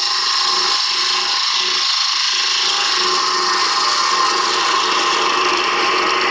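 A carbide-tipped parting tool cutting into pine spinning on a wood lathe: a steady, loud shaving hiss that comes in abruptly as the tip bites and holds even throughout.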